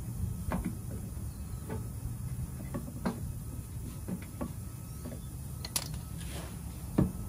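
Scattered small clicks and taps as plastic retaining clips are pried out of a truck's aluminum skid plate with clip pliers, the sharpest taps near the end, over a steady low rumble.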